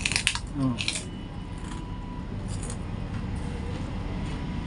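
Crisp kerupuk cracker bitten and chewed close to the microphone: a sharp crunch at the start, another about a second in, then fainter crunches while chewing.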